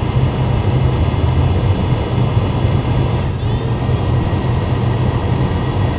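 Newly installed HVAC blower motor of a 2012 Chevy Impala running, a steady loud rush of fan air with a low hum.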